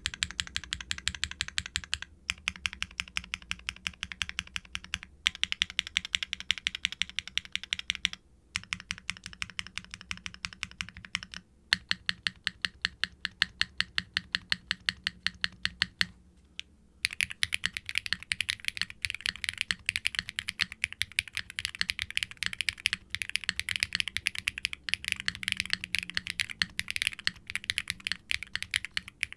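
Fast typing on a Wilba.tech Salvation aluminium mechanical keyboard with an FR4 plate, no sound dampening, Keygeek B1 linear switches and GMK doubleshot ABS keycaps. Steady streams of sharp keystroke clacks break off in a few short pauses, then turn denser in the second half.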